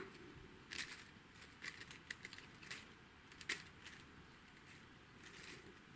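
Faint, irregular light clicks and rustles of plastic sequin leaves and thin wire branches, handled by fingers as the branches of a small beaded-wire maple tree are bent and spread.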